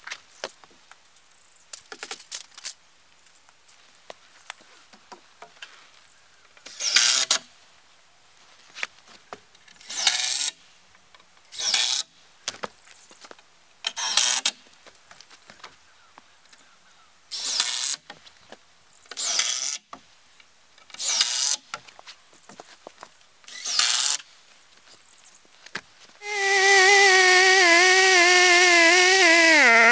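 Cordless drill whirring in short bursts, about eight times, while roof rafters are fastened. About 26 seconds in a chainsaw comes in loud at high speed, its pitch dropping sharply as it cuts into a board.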